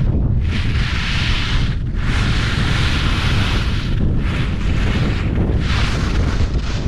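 Skis carving turns on groomed snow, giving several hissing scrapes a second or two long, over a constant low rumble of wind buffeting the microphone at skiing speed.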